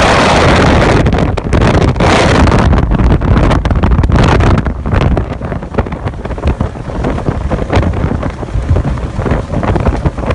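Wind buffeting the microphone aboard a speedboat running fast, over the rush of water and engine noise. Heaviest for the first four to five seconds, then lower and choppy, with many short thumps.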